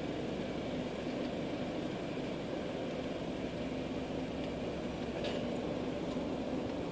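Steady low rumble inside a car moving slowly in queued traffic, its engine running, with a faint steady hum and one faint click about five seconds in.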